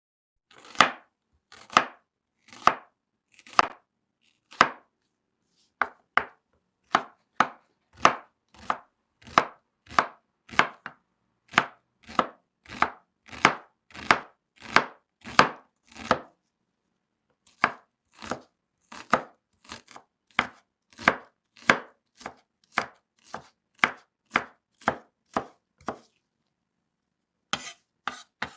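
A knife chopping vegetables on a cutting board: a steady run of sharp chops, about one a second at first, then quicker at near two a second, with a few short pauses.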